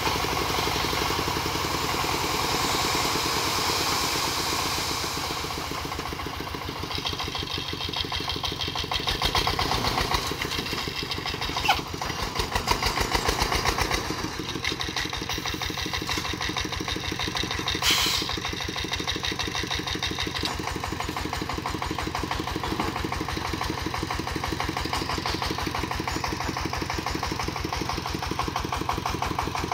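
Công nông farm tractor-truck's single-cylinder diesel engine running steadily with a fast, even chugging beat, a little louder around ten to fourteen seconds in. Two sharp knocks stand out, about six seconds apart.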